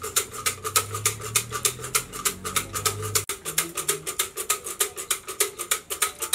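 Fortune sticks (siam si) rattling in a red cylinder as it is shaken, a fast, even clatter of about seven clicks a second.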